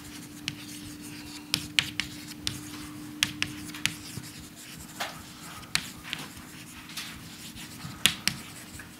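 Chalk writing on a blackboard: irregular sharp taps and short scratches as the chalk strikes and drags across the board.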